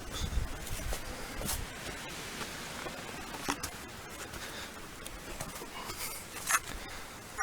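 Steady hiss of wind on the microphone, with a few low buffets near the start and a few light clicks and scrapes scattered through.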